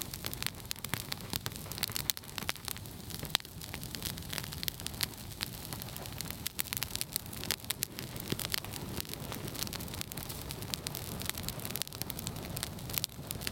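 Campfire of dry twigs and branches burning, crackling with many irregular sharp pops over a soft steady rush of flame.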